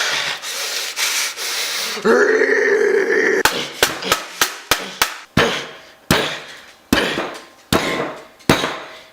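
Cheese being grated by hand into a bowl: scraping strokes against the grater. The strokes come about three a second, then slow to roughly one every three-quarters of a second, each a sharp rasp that fades quickly.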